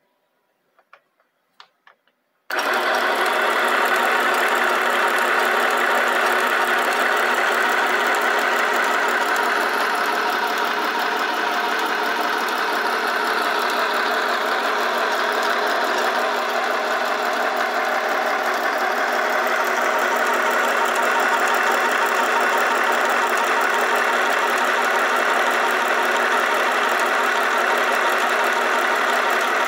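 A few light clicks, then about two and a half seconds in the Philco PMC16 sewing machine's small electric motor starts and runs steadily at one speed, driving the bobbin winder to fill a bobbin with thread.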